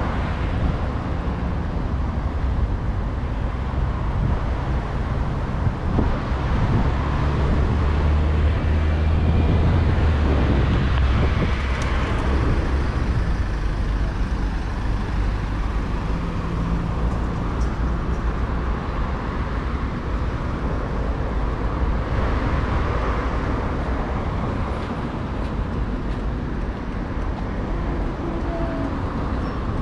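Steady road traffic on a busy city avenue, cars and buses passing with a constant low rumble. A heavier vehicle passes louder about eight to eleven seconds in.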